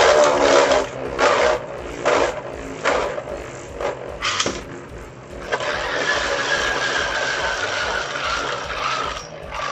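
Spinning Beyblade tops clashing in a stadium with a run of sharp clacks, then a steady whir whose pitch slowly falls as a top winds down, stopping near the end.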